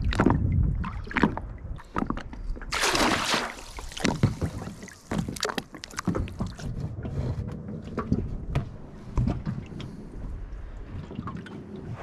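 A baited wire-mesh prawn trap is handled and dropped over the side of an inflatable dinghy, with a loud splash about three seconds in. Then its line pays out over the rubber tube, with scattered knocks, clatters and rubbing.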